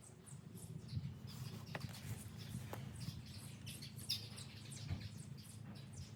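Small birds chirping in the background, many short high chirps, with a couple of faint clicks about two and three seconds in.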